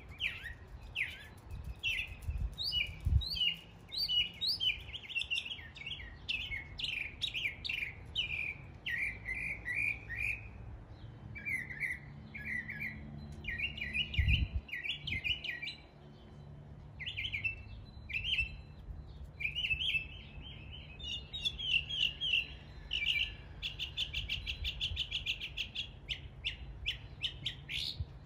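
Northern mockingbird singing a long, unbroken run of varied phrases, each repeated several times before switching to the next, mimicking the calls of other local birds. Near the end comes a fast series of evenly repeated notes.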